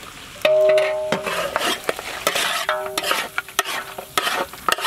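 A metal ladle stirring and scraping a thick mutton and cashew-coconut paste mixture in a large metal cooking pot, starting about half a second in. The scrapes make the pot ring twice, with many scraping clicks over the sizzle of the meat frying in oil.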